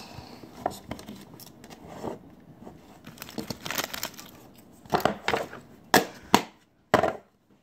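Plastic toy packaging being handled and torn open: scattered crinkling, rustling and tearing strokes, louder and more frequent from about three and a half seconds in.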